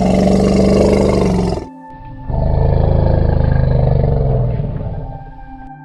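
Tiger roaring twice: a loud roar that breaks off about a second and a half in, then a second long roar that fades away.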